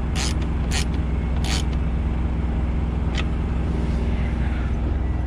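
Diesel truck engine idling steadily, with a few short sharp clicks in the first two seconds and one more about three seconds in.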